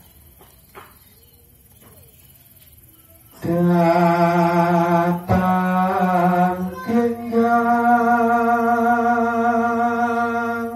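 A man singing a Javanese kidung alone. After a pause of about three seconds, he holds long drawn-out notes with a slight waver, and the pitch steps up about seven seconds in.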